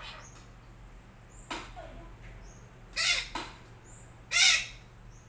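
Sumatran red-breasted parakeet (betet sumatera) giving short calls, each rising and falling in pitch: a faint one about a second and a half in, then three loud ones in the second half.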